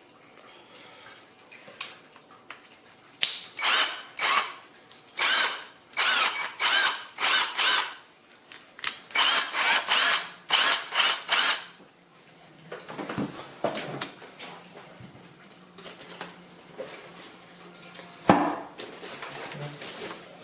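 Avid Power 20V brushless cordless impact wrench run unloaded in a quick series of short trigger pulls, about a dozen bursts of motor whine each lasting under a second. Quieter handling knocks follow near the end.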